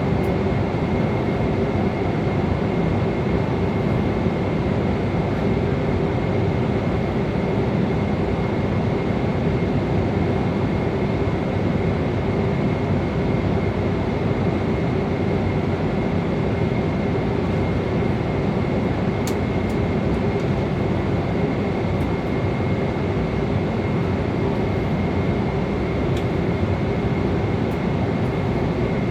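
Airliner cabin noise in flight: a steady rush of air and engine drone with a constant low hum and a thin high whine. A few faint ticks in the second half.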